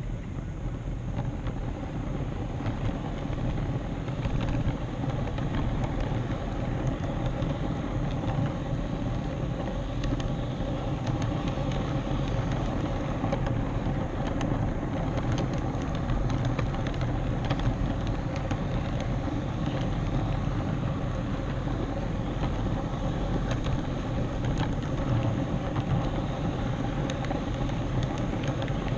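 HO scale model train running along the layout's track, heard from the camera car riding it: a steady rumble of motor and wheels on rail with occasional faint clicks.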